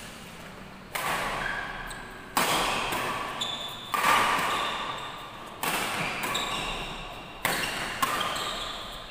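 Badminton rackets striking a shuttlecock back and forth in a rally: about six sharp hits, roughly one every one and a half seconds, each ringing out in the hall's echo.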